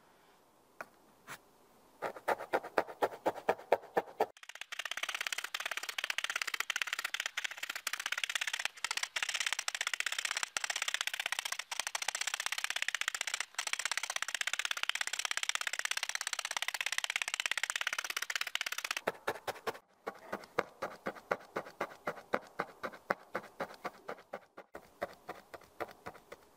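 Felting needles in a wooden-handled multi-needle tool stabbing repeatedly through wool into a foam pad. It starts as separate strokes about five a second, runs together into fast continuous scratching for most of the time, then slows back to separate stabs near the end.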